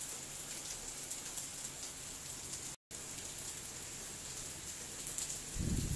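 Steady, even hiss of background noise that cuts out completely for a moment about halfway through, with a few faint clicks as metal engine parts are handled.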